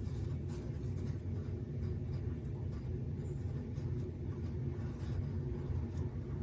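Faint, scattered scratchy rustling of dry breadcrumbs as a raw minced-chicken nugget is pressed and turned in them by hand, over a steady low hum.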